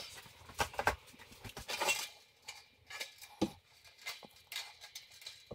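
Pliers working the sheet-metal housing of a Samsung dryer heating element: irregular small metal clicks, taps and scrapes as the retaining wire is bent straight to free the element.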